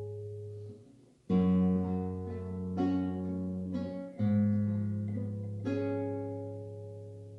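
Acoustic guitar strumming slow chords in a song's introduction, each chord struck about every second and a half and left to ring out and fade.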